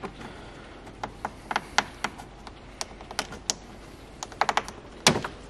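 Plastic push-pin trim clips on a B8.5 Audi A5/S5's upper plastic cover panel clicking and tapping as a metal pick pushes their centre pins down and the clips are lifted out. Irregular small sharp clicks, with one louder click near the end.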